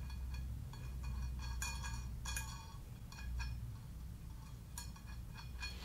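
Hex nuts and washers being turned off threaded steel studs by hand: faint, light metallic clicks and ticks, with a few brighter clinks about two seconds in and again near the end.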